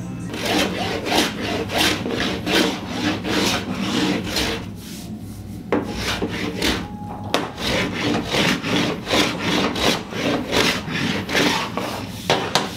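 Hand plane taking quick, short strokes across a walnut board, about three strokes a second, with a brief pause about five seconds in.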